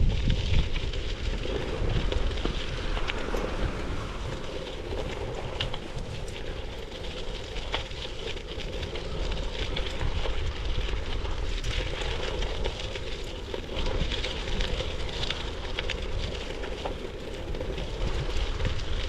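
Wind rumbling on the microphone with a steady rushing noise and scattered faint crackles.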